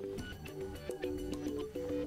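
Soft background music: a gentle melody of held notes that changes every fraction of a second.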